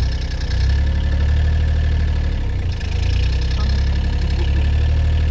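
Engine of a small open-top vehicle running steadily as it drives along, a deep even hum that dips briefly about halfway through.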